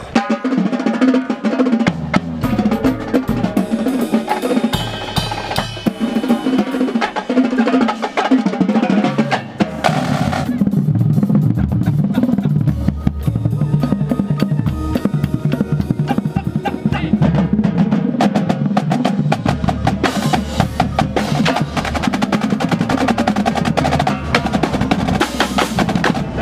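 Marching drumline playing a fast, dense passage: a line of snare drums with rolls and rapid strokes, tenor and bass drums underneath. The bass drums get heavier about ten seconds in.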